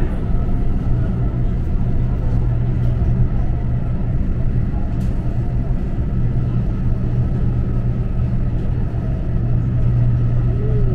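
Passenger train running: a steady low rumble with a constant hum.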